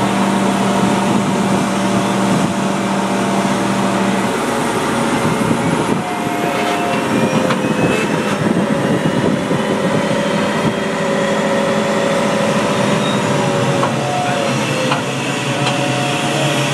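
Aircraft pushback tug running as it pushes an Embraer 190 back by a towbar, heard from inside the tug's cab: a loud, steady machine noise, with a faint rising whine through the middle.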